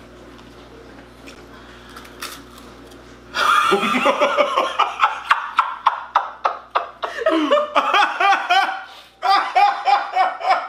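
Low room hum with a couple of faint clicks, then about three and a half seconds in, loud laughter breaks out in quick repeated bursts, pausing briefly near the end before starting again.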